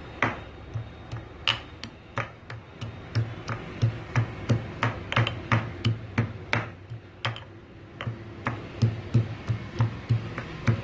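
Pestle pounding chopped fresh ginger in a white stone mortar: repeated, uneven knocks about two to three a second, each with a dull thud, as the ginger is crushed.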